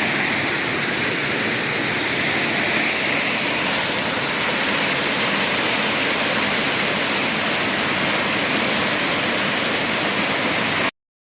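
Waterfall running, a loud, steady rushing of falling water that cuts off suddenly near the end.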